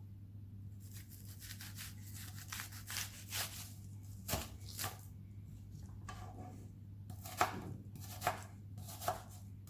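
A kitchen knife chopping onion on a cutting board: irregular knife strikes, a few of them sharper and louder, over a low steady hum.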